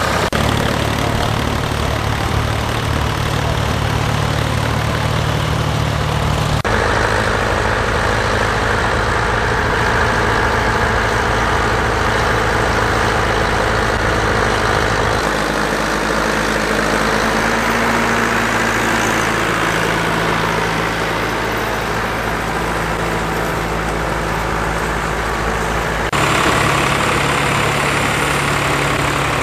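Vintage farm tractor engines running steadily under load while ploughing. The engine note changes abruptly about a quarter of the way in, about halfway and near the end, as a different tractor is heard each time.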